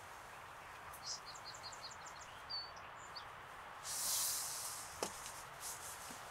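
Quiet outdoor ambience with a small songbird singing a short, quick series of about six high notes a little over a second in. A brief rustling hiss comes about four seconds in, followed by a single click.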